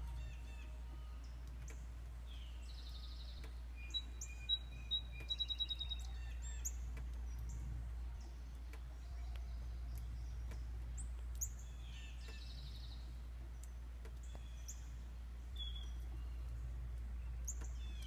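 Wild songbirds chirping and calling: scattered short, sharp high chips, and a quick run of clear whistled notes about four to six seconds in, over a steady low hum.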